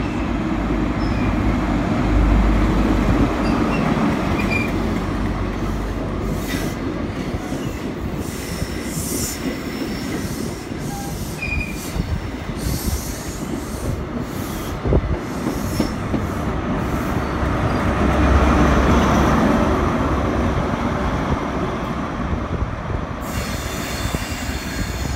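InterCity 125 High Speed Train running past along the platform: the diesel engine of one power car rumbling by in the first few seconds, the coaches' wheels running on the rails, then the other power car's engine rumbling past about eighteen seconds in.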